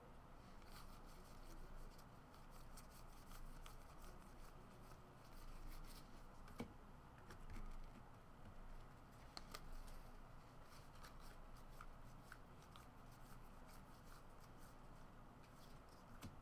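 Faint clicks and rustling of a stack of trading cards being handled and flipped through by hand, with scattered small card-on-card ticks.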